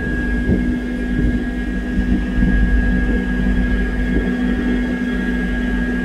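A car ferry's engines and machinery running with a steady drone under a thin, steady high whine, and a rumble at the very bottom that rises and falls.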